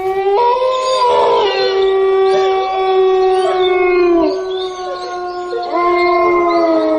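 Dramatic background music of long, held, wailing notes. One note lasts about four seconds and sags at its end, and a second begins near six seconds.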